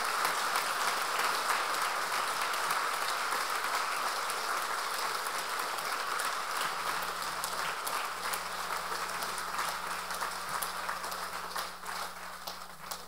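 Audience applauding steadily, then thinning out near the end.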